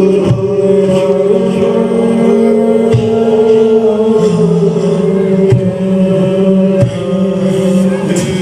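Chanted singing by a group of voices holding long, steady notes that shift pitch a couple of times, with a few sharp knocks scattered through.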